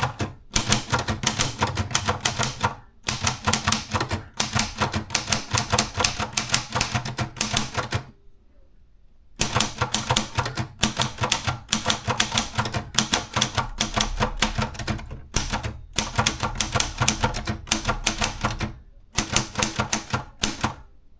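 Maritsa 30 hyperportable typewriter being typed on: fast runs of key strikes broken by brief pauses, the longest about eight seconds in.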